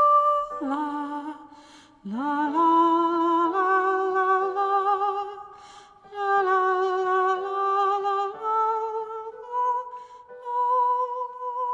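A woman's voice humming the wordless closing melody of a nursery song, in a few phrases of long held notes with vibrato, ending on a sustained note.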